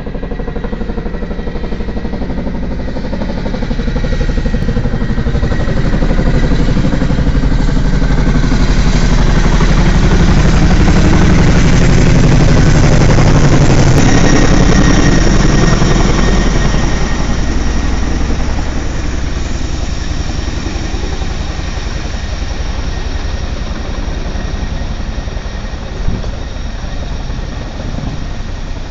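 Boeing CH-47 Chinook tandem-rotor helicopter flying over, its rotors beating rapidly with engine noise. The sound grows louder as it approaches, is loudest as it passes overhead about halfway through, then fades as it moves away.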